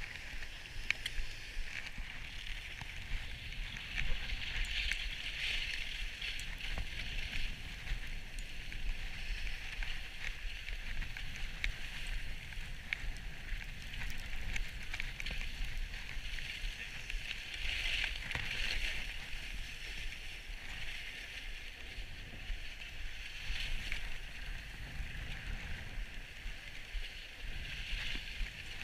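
Skis hissing and scraping over packed snow in a continuous run, growing louder and fading again several times, with a low steady rumble beneath.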